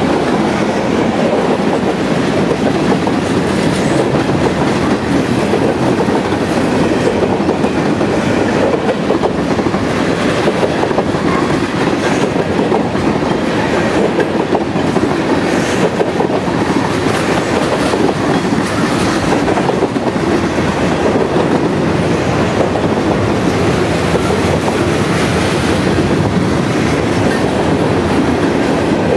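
Freight train cars of boxcars, tank cars and gondolas rolling steadily past: a continuous rumble of steel wheels on the rails with occasional clicks.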